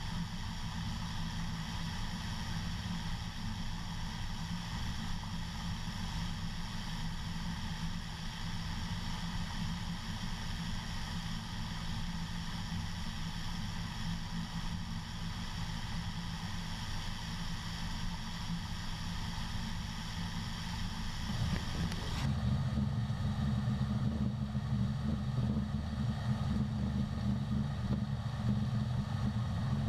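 Steady drone of heavy farm machinery running during the corn harvest, with hiss over a low engine hum. About 22 seconds in it changes abruptly to a louder, deeper drone with less hiss.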